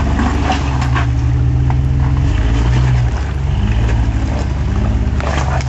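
Lifted Jeep Wrangler's engine working under load as it crawls over rocks, the revs rising about a second in and falling back a little after three seconds, with a few short knocks of tyres on rock.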